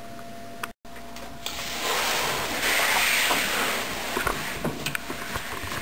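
Faint room tone, then a cut, then rustling and shuffling of clothing and a body sliding over carpet as a person crawls along the floor, with a few light knocks.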